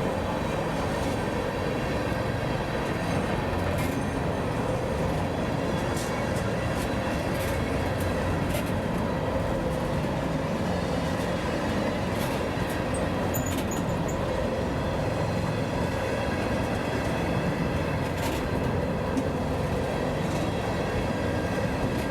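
Norfolk Southern freight train rolling past: a steady rumble of wheels on rail, with a few sharp clicks scattered through it.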